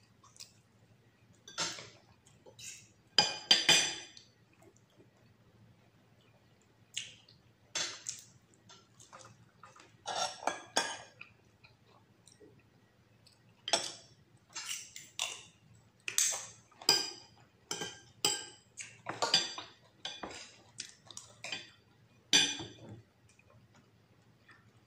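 Metal spoon and fork clinking and scraping against a plate while eating, in short irregular clinks, with a louder cluster about three seconds in.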